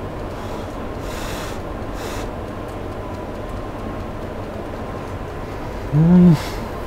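A man's short closed-mouth "mmm" of enjoyment, rising and falling in pitch about six seconds in, while he chews a charcoal-grilled mushroom. Under it runs a steady low background rumble with a faint steady tone.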